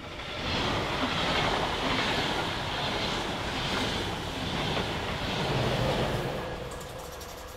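A DB Intercity train of coaches, pushed by an electric locomotive at the rear, passes close by at speed. Wheels on rail and rushing air make a steady noise that builds within the first second, is loudest as the locomotive goes past, and fades near the end.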